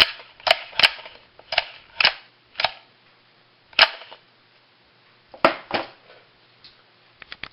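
Sharp plastic-and-metal clacks, about nine of them at uneven spacing, from the freshly rebuilt recoil pull starter of a Honda ATC 110 being worked by hand, with a few faint ticks near the end.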